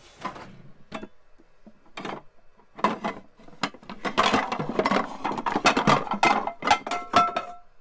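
A kitchen drawer pulled open, then pots, pans and glass lids clattering and knocking against each other as a pan is dug out of the packed drawer. A short ringing clink sounds near the end.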